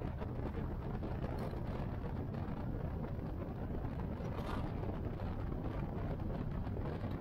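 Cruiser motorcycle engine running steadily at cruising speed on the open road, with wind rushing over the microphone.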